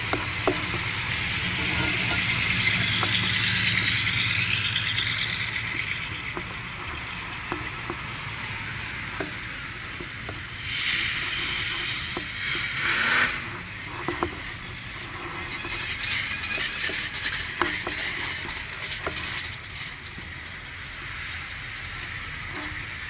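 Cars driving past. An engine is heard running for the first few seconds and then fades, leaving road and tyre noise, with another car swelling past about eleven to thirteen seconds in.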